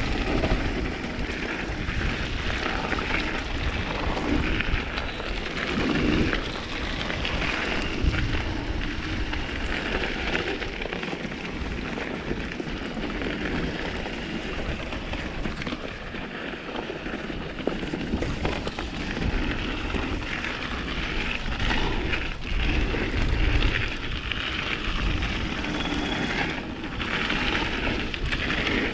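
Mountain bike descending a frozen trail: tyres rolling and crackling over hard dirt and gravel, with the bike rattling and wind rushing over a chest-mounted camera's microphone in a steady, loud rumble.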